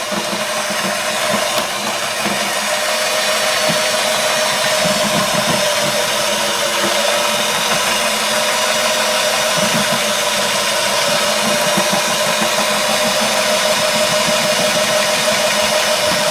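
Electric mixer running steadily at one pitch, its two beaters whisking pancake batter of flour, eggs and milk in a plastic bowl.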